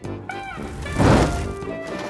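Cartoon background music with steady held notes, and a short noisy burst about a second in that is the loudest moment.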